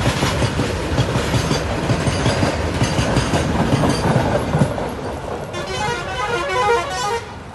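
Loaded coal wagons of a freight train rolling past on a curve, wheels clattering and knocking over the rail joints; the clatter eases off about five seconds in. A short run of electronic-sounding notes plays near the end.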